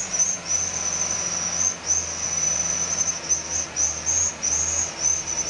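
A high-pitched insect chorus, rising and falling in long pulsing phrases, over the low steady running of a Mitsubishi Canter truck's diesel engine.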